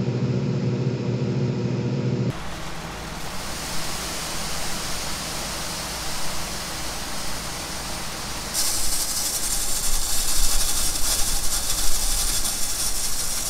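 A combine's engine humming steadily for about two seconds, then, after a sudden change, a steady rushing noise. About eight and a half seconds in it changes again to a loud, bright hiss of soybeans pouring from the unloading auger into a wagon.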